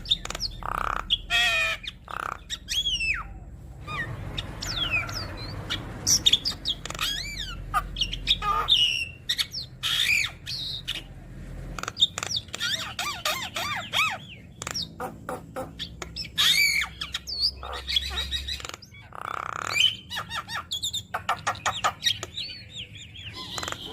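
Javan myna (jalak kebo) singing a fast, varied song of whistled glides, harsh squawks and quick clicking notes, broken by short pauses.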